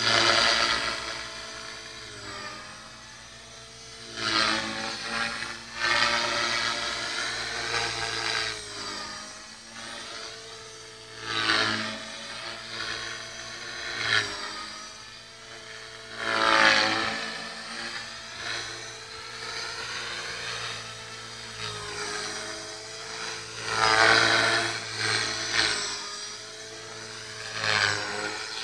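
Small electric radio-controlled helicopter (T-Rex 450 clone) in flight: the high whine of its motor and spinning rotor blades, swelling louder several times with its pitch sliding up and down as it manoeuvres.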